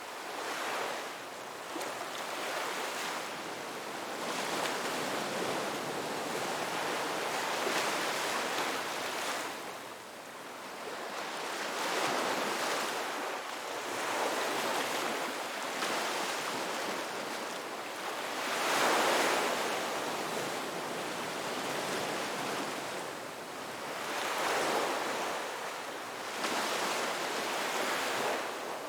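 Ocean waves breaking and washing up a beach, a continuous hiss of surf that swells and falls as each wave comes in every few seconds.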